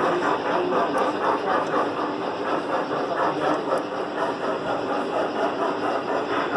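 An engine or machine running steadily with a quick, regular beat.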